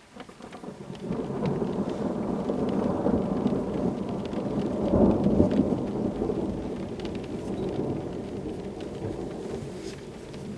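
Thunder rolling: a long, deep rumble that builds about a second in, is loudest around the middle and slowly dies away.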